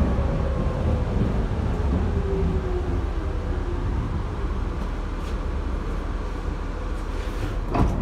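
Berlin U-Bahn G1/1E train heard from inside the car, slowing into a station: a steady rumble of the running gear, with a whine that falls in pitch over the first few seconds as the train brakes. A sharp click comes near the end.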